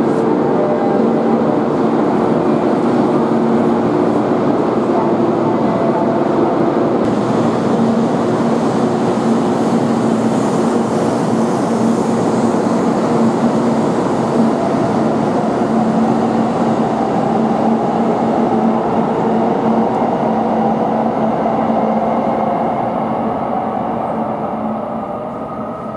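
Kyushu Shinkansen train pulling out alongside the platform: a steady running hum with a low tonal whine, fading as it draws away near the end.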